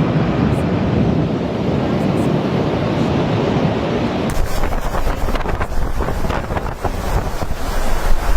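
Strong wind blowing over the microphone in a snowstorm, a steady loud rushing. About four seconds in it turns to lower, gustier buffeting with crackling pops on the microphone.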